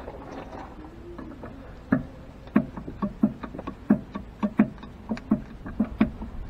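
Hand grease gun being pumped into a tractor's front-axle steering knuckle grease fitting, a rhythmic series of short clicking strokes, about two to three a second, starting about two seconds in.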